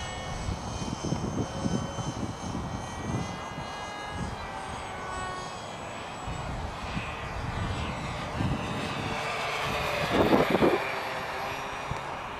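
Twin electric motors and three-bladed props of a foam RC Cessna 421 model whining in flight, several high tones that drift in pitch as it moves, with wind buffeting the microphone. A short louder sound about ten seconds in.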